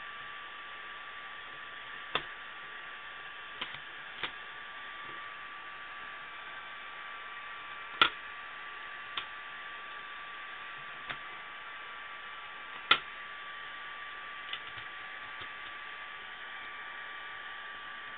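Plastic CD jewel case being handled, opened and shut: a scattering of short, sharp plastic clicks and taps, two of them louder about halfway through and two-thirds of the way through, over a steady hiss and a faint steady tone.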